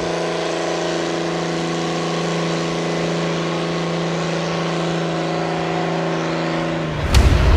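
Trial truck's engine held at steady high revs as it climbs a steep slope, its pitch unchanging. About seven seconds in it is cut across by a sudden, louder, deeper rumble.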